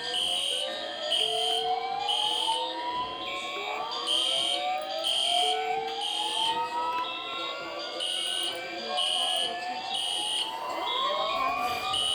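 Fire alarm sounding: high electronic beeps repeating about once a second and alternating in pitch, layered with several overlapping siren wails that keep rising in pitch.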